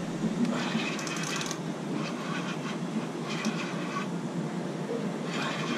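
Spinning reel being cranked in four short bursts, its gears whirring and clicking, as a hooked sturgeon is reeled in, over a steady low rumble.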